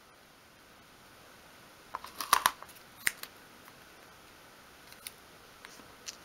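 Thin etched brass sheet and masking tape being handled as the sheet is curled around a dowel. There is a short cluster of crisp crackling clicks about two seconds in and a single sharp click a second later, then a few faint ticks near the end.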